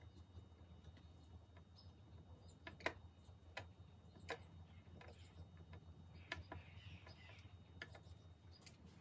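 Faint, irregular clicks and ticks of a hand screwdriver driving small screws into a drawer glide on an MDF drawer, over a low steady hum.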